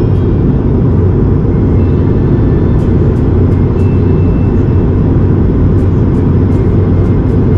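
Steady low rumble of an airliner cabin in flight, the even roar of the jet engines and airflow.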